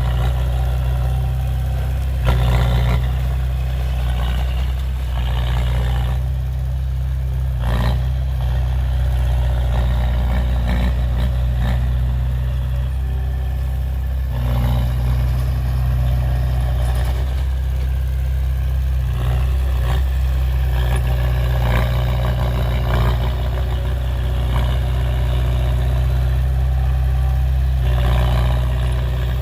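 Heavy machinery's diesel engine running steadily, with intermittent clatter and a sharp knock about eight seconds in.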